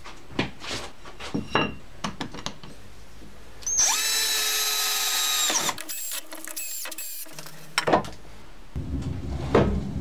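Power drill-driver driving screws through a steel lathe faceplate into a wooden log: after a few knocks and clicks of handling, the motor runs at a steady pitch for about two seconds, then in a few short bursts. A low steady hum starts near the end.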